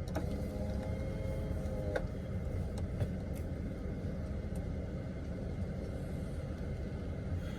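Steady low rumble of a car with its engine running, heard from inside the cabin, with a couple of small clicks.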